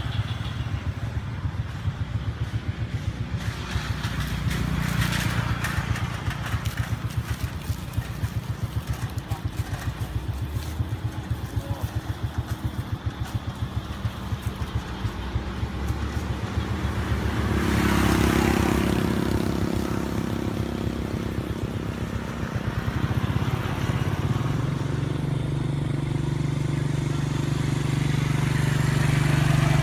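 A motor engine running with a rapid, even beat, swelling a little past halfway and again near the end, as of motorbikes or other vehicles on a nearby road.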